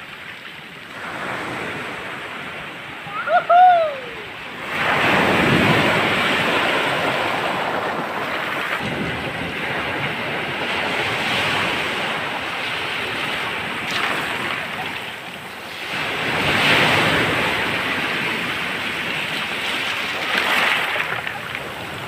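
Surf breaking and washing up a pebble beach, swelling every five or six seconds. About three and a half seconds in, a short pitched call rises and falls, the loudest moment.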